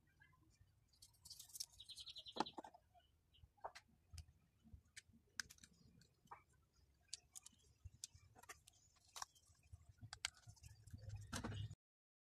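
Faint clicks and taps of hard plastic toy-figure parts being handled and snapped together, with a brief high rattling squeak about two seconds in. The sound cuts out completely near the end.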